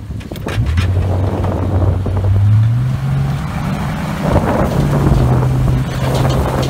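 Jeep Cherokee engine pulling under way in four-wheel drive, its pitch climbing about two seconds in, dropping briefly past the middle and picking up again, with wind on the microphone. There is no crunching from the drivetrain: the newly replaced U-joints are running quiet.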